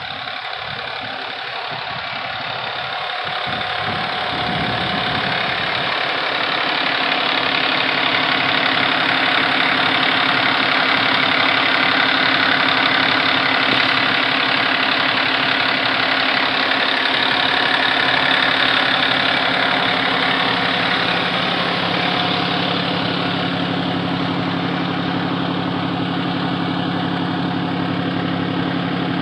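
Ladder fire truck's diesel engine idling steadily. It grows louder over the first several seconds as the microphone moves along the truck's side past the pump panel, then eases a little, with a steady low hum from inside the cab near the end.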